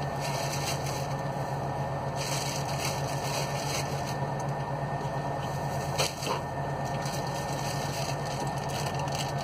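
A plastic produce bag rustling and crinkling in bursts as it is handled, with one sharp knock about six seconds in, over a steady low hum.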